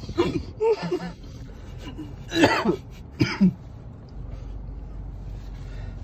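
A person coughing hard in three fits: about a second's worth right at the start, another around two and a half seconds in, and a short one just after three seconds.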